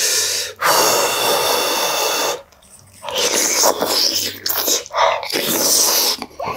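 A person slurping spicy pollack roe soup (altang) from a wooden spoon: one long slurp with a thin whistle in it, a short pause about two and a half seconds in, then a run of quick slurps and sips.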